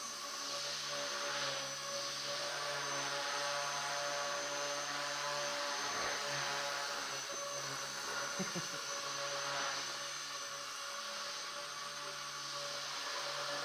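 Align T-Rex 250 electric micro RC helicopter in flight: a steady whine from its motor and rotor, swelling and fading as it moves about.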